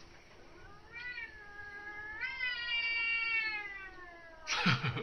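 An angry domestic cat gives one long, drawn-out yowl that steps up in pitch partway through and then slowly sinks. Near the end it breaks off into a short, sharp hiss.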